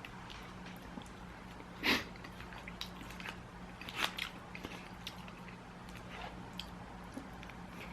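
Close-miked chewing of pizza-box food: scattered small mouth clicks and crunches, with a louder one about two seconds in and another about four seconds in.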